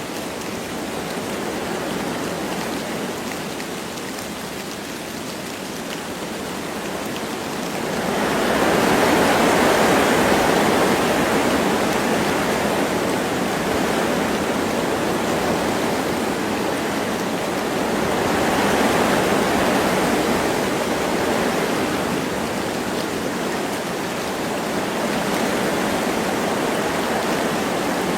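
Wind blowing through forest trees with light rain: a steady rushing noise that swells twice in gusts.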